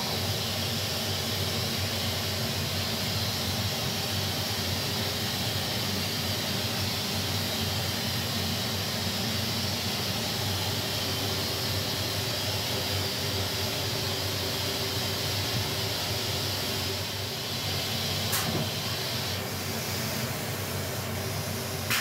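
Voumard 110 CNC T internal grinding machine running: a steady mechanical hum with a high hiss over it. A single sharp click comes near the end, and the high hiss then thins out.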